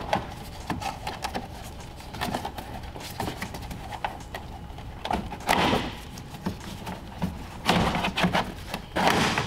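A plastic shroud behind a Ford Focus ST's grille being worked loose and pulled out by hand: a run of plastic clicks, knocks and scraping, louder about halfway through and again near the end.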